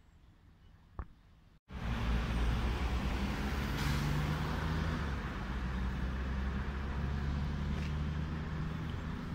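Faint street ambience with a single sharp click about a second in, then, after a cut, steady road traffic with a low engine hum.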